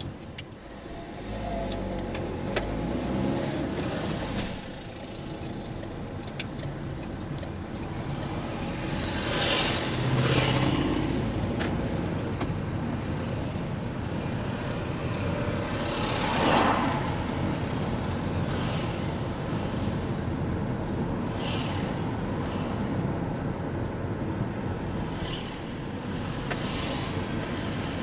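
Road traffic heard while driving through town: a steady bed of engine and tyre noise, with other vehicles swelling past, the loudest about ten and sixteen seconds in.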